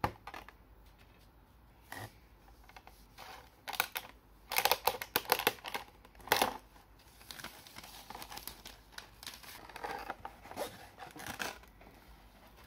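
Scissors snipping through the clear plastic wrap on a cardboard toy box, in short irregular cuts. Then crinkling and rustling of plastic wrap and cardboard as the box is opened.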